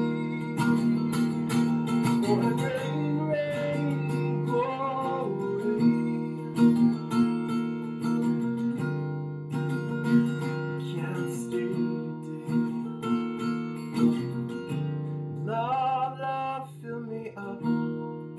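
Acoustic guitar with a capo, strummed in a steady chord pattern. A voice comes in briefly over it twice: about three seconds in and again near the end.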